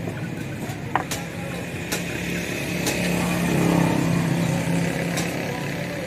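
A motor vehicle's engine running on the street, its hum swelling louder around the middle and easing off near the end. A few sharp clicks and taps are scattered over it.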